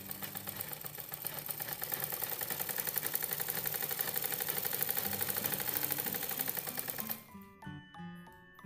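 Domestic sewing machine stitching through fabric in a rapid, even clatter that stops suddenly about seven seconds in.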